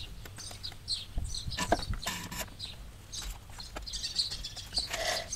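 Small birds chirping repeatedly in short high notes. There is a short hiss about two seconds in and a brief pitched animal call near the end.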